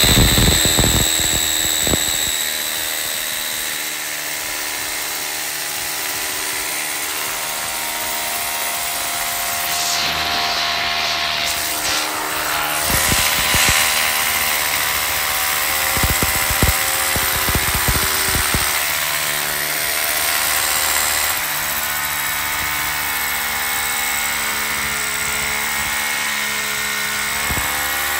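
Makita rotary hammer drill boring a long bit through timber flooring into the concrete slab beneath. It runs steadily, its pitch shifting slightly as the load changes.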